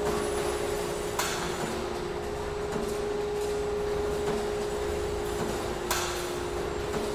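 Factory-floor ambience inside a spring manufacturing plant: machinery running with a steady hum and low rumble, and two sharp ringing clanks, one about a second in and one near six seconds.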